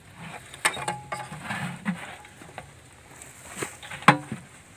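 Metal latch and hinged sheet-metal lid of a blue plastic fish-holding tank being unlatched and opened: a series of sharp clicks and knocks, the loudest near the end.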